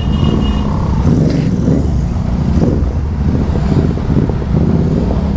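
Motorcycle engine running steadily under way, with rushing air across the helmet microphone.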